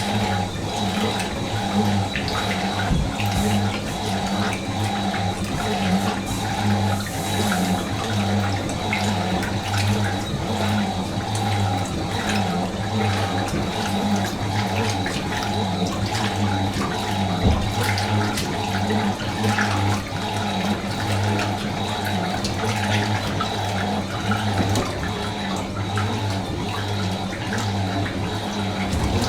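Fisher & Paykel MW512 washing machine running, water rushing and splashing inside it over a steady low hum.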